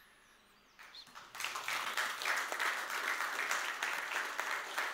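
Audience applauding: the clapping starts about a second in, builds quickly, then holds at a steady level.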